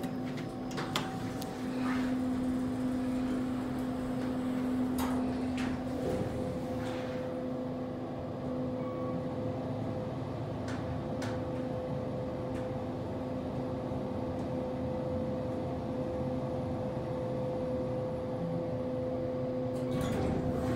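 Kone EcoDisc traction elevator travelling, heard from inside the car: a steady hum whose pitch steps up about six seconds in, with a few light clicks in the first seven seconds.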